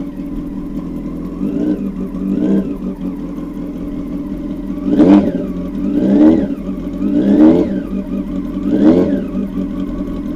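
Honda Hornet 900 inline-four running with its silencers removed, so it sounds through open header pipes. It idles and is revved: two small blips, then four bigger revs about a second apart in the second half, each rising and falling back to idle.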